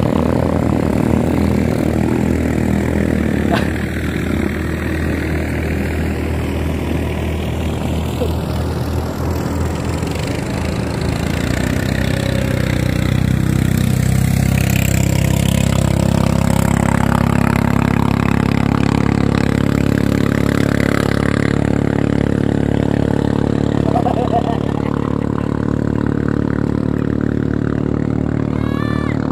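Engines of racing klotok boats running at full speed, a loud, steady engine drone. About twelve seconds in, a boat passes closer and its engine note becomes stronger and deeper.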